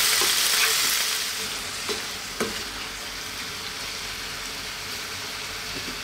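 Shredded cabbage and strips of beef sizzling in oil in a frying pan as they are stirred with a wooden spatula, with two light knocks from the stirring about two seconds in. The sizzle is loudest at first and settles lower after a second or so.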